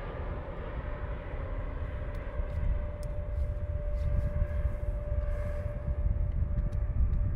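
Twin turbofan engines of an Emirates Boeing 777 at takeoff thrust as the jet climbs out: a deep, steady rumble with a thin steady whine that comes in about a second and a half in, growing a little louder toward the end.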